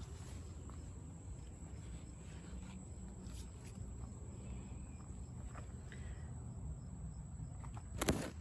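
Garden ambience with a low rumble from wind and handling, faint insect chirping, and small rustles of leaves. About eight seconds in, leaves brush against the phone for a brief, loud rustle.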